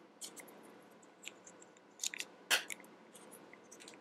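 Plastic Engino construction pieces snapped together by hand: a string of sharp clicks, the loudest about two and a half seconds in.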